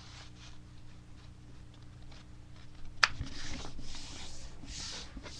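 A sheet of paper being folded in half: a sharp snap of the paper about three seconds in, then paper rustling and sliding as the fold is creased.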